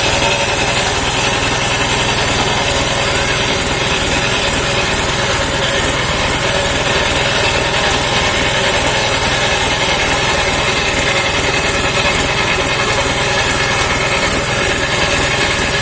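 Engine of a home-built circular sawmill running steadily.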